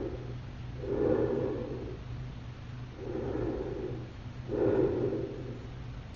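Three slow, heavy breaths, each about a second long and a second or so apart, over a low steady hum.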